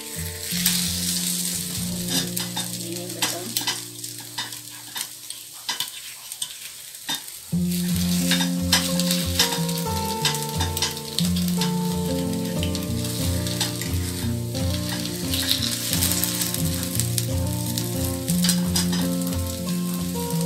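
Serabi batter sizzling in the cups of a hot serabi pan, with a metal spoon clicking and scraping against the pan as the cakes are worked.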